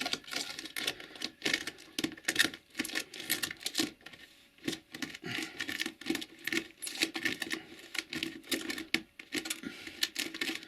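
Small brush sweeping loose fine-and-medium ballast granules into model railway track: a quick, irregular run of scratchy brush strokes, with a short pause about four seconds in.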